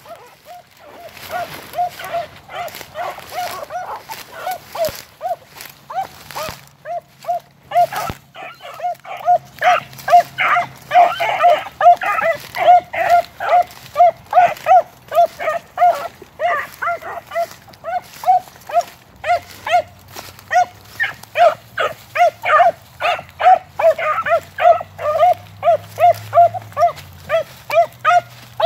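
A brace of beagles giving tongue on a rabbit's scent trail: a steady chop of short barks, about two a second, that grows louder from about a third of the way in.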